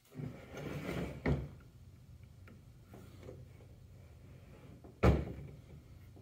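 Hands handling a bare GY6 scooter engine on a table: rustling and knocking against the metal casing, with a click a little over a second in and one sharp knock about five seconds in.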